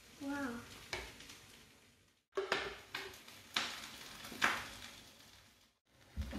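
A metal spoon stirring a drink in a glass jug, clinking against the glass about five times at uneven intervals.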